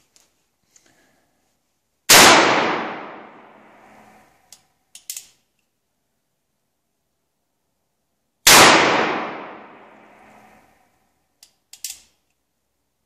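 Two shots from an Uberti Cattleman single-action revolver in .44-40, about six seconds apart, each ringing out and dying away over about two seconds under the covered firing line. A few seconds after each shot come small clicks of the hammer being cocked for the next shot.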